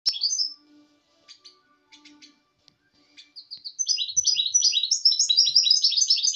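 A goldfinch × canary hybrid (mule) singing in its cage. A short call comes at the start, then about four seconds in it breaks into a fast, loud twittering song of rapid sweeping notes.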